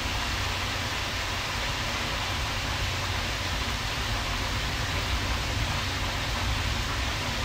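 Shrimp sizzling in their sauce in a frying pan: a steady hiss.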